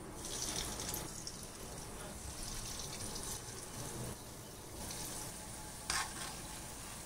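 Batter-coated potato vadas deep-frying in hot oil in a kadai: a steady sizzle and crackle of bubbling oil. A short, sharper knock cuts in about six seconds in.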